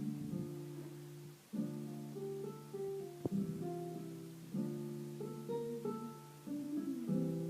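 Instrumental music of plucked-string chords with a moving melody on top, the chords struck afresh about every three seconds.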